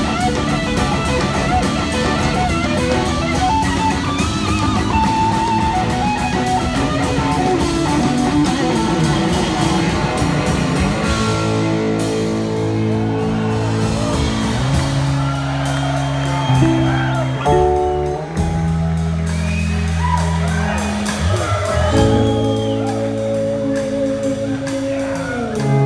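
Live band with electric guitar, bass, drums and horns playing loudly. About eleven seconds in, the band shifts to long held chords, and a woman's voice sings over them near the end.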